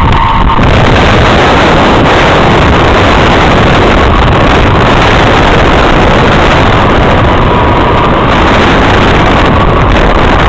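Wind buffeting the microphone as a rider speeds face-down along a zip-line cable: a loud, steady rush that never lets up, with a faint steady whine in the last few seconds.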